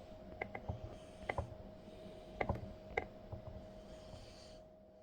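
Irregular light clicks and taps, a few at a time, like small hard parts or tools being handled, over a faint steady hum.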